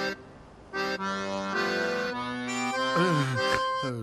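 Accordion music cue with changing notes. It drops away briefly just after it starts, then comes back, and falling pitch slides sound near the end.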